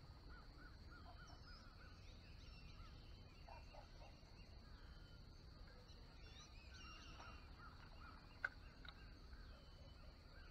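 Faint outdoor ambience: bird calls in quick series of short repeated notes and chirps over a steady high whine, with one sharp click near the end.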